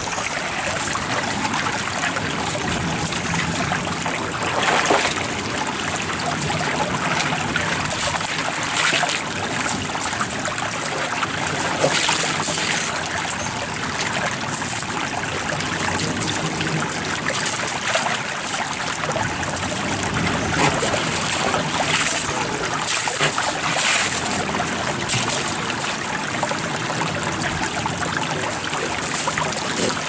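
Shallow water trickling steadily out of a concrete culvert over beach pebbles, with a few brief louder noises as a dog noses and paws among the wet stones.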